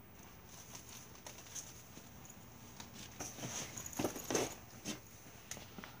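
Faint scattered knocks and shuffling footsteps as a person gets up and moves away, with a few louder knocks between about three and five seconds in, over a faint steady high hiss.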